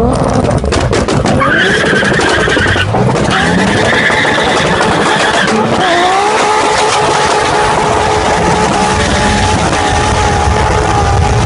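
A 2JZ-swapped BMW E30's turbocharged inline-six revving hard, its pitch climbing again and again, with tyres squealing. From about six seconds in, the engine note holds at a steady high pitch.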